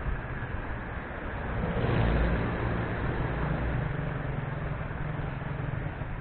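Road traffic running steadily, with a vehicle passing close about two seconds in, its engine rumble swelling and then easing back into the traffic noise.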